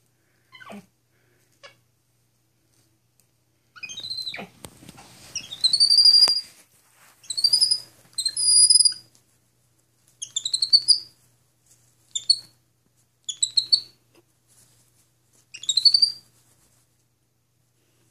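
Capuchin monkey giving a series of short, high-pitched chirps, rising or arching in pitch, in several bursts from about four seconds in. Soft rustling of bedsheets comes with the first calls.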